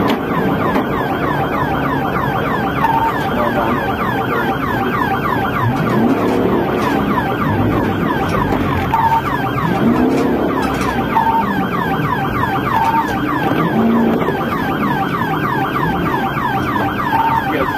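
Police siren on a fast yelp, its pitch sweeping over and over several times a second, with vehicle engine and road noise beneath.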